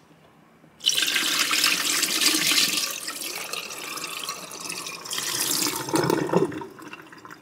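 Soaking water poured out of a plastic bowl into a stainless steel sink, splashing into the drain. It starts suddenly about a second in, is heaviest at first, and thins to a trickle near the end.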